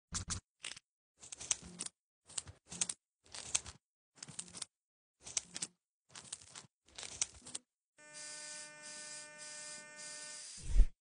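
A scalpel scraping callus from the sole of a foot in about ten short, separate strokes. From about eight seconds in, a small electric rotary file runs with a steady hum that swells and dips, and a loud, deep thump comes just before the end.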